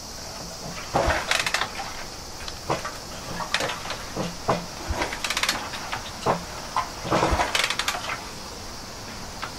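Irregular clunks and rattles, one or two a second, as the Honda Dream 50's kick starter is worked over and over without the engine firing. The engine is being turned over to circulate oil before its first start after an overhaul.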